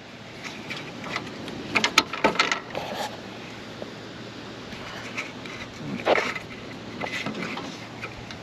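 Clattering knocks and rattles from the metal parts of an Amazone D9 seed drill being handled and adjusted, in two clusters about two seconds in and around six seconds, over a steady low hum.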